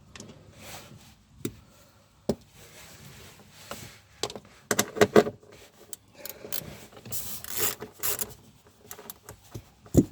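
Hand-tool work on the 10 mm bolts holding a cover: irregular clicks, a quick run of ratchet-like clicks about five seconds in, and scraping and rubbing of metal and panel.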